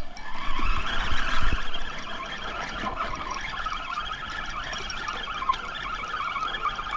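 Fishing reel being cranked fast, its gears whirring steadily as the line is wound in after a missed hookset. A few handling knocks come in the first couple of seconds.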